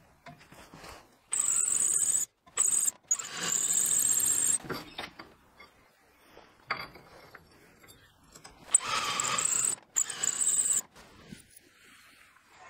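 Cordless drill running a countersink bit into pre-drilled holes in steel flat bar, cutting in short runs with a high-pitched whine. The runs come in two spells: one from about a second in, the other near nine seconds.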